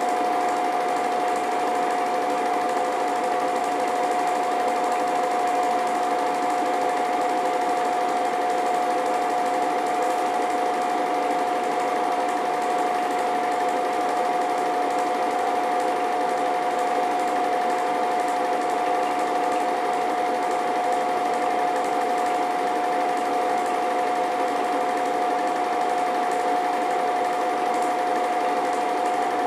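Home-movie film projector running: a steady whine over a fast, even mechanical clatter.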